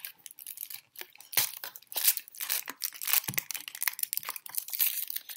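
Foil wrapper of a Tony's Chocolonely chocolate bar being unwrapped by hand, crinkling and tearing in quick, irregular crackles.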